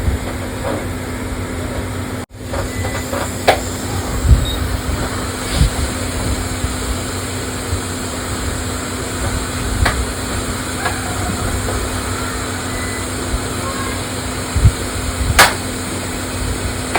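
A steady electrical hum and hiss, broken by a few scattered sharp clicks and light knocks.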